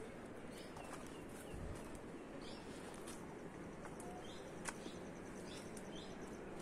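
Quiet rural outdoor background with faint, scattered bird chirps, short high calls every second or so. A single sharp click sounds a little past the middle.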